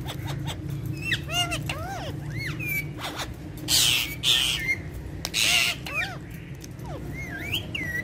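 Alexandrine parakeets calling: short whistles that rise and fall in pitch, with two loud harsh screeches about four and five and a half seconds in. A steady low hum runs underneath.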